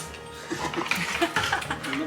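Background music with short, quick notes.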